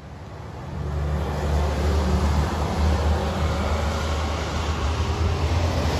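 Heavy coal truck going by on the road, its diesel engine rumbling under tyre and road noise. It grows louder about a second in, then holds steady.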